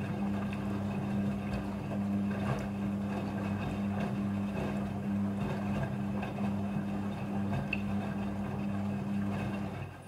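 Midea front-loading washing machine running: a steady motor hum over an even rushing noise, cutting off just before the end.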